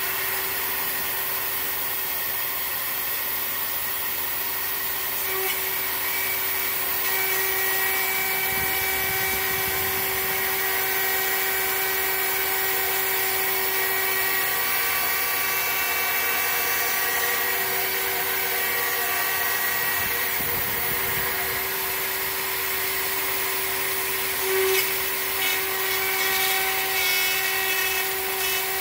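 CNC router spindle milling a lock cutout in an aluminium door profile: a steady high-speed spindle whine over the hiss of the end mill cutting the metal, a little more uneven in the last few seconds.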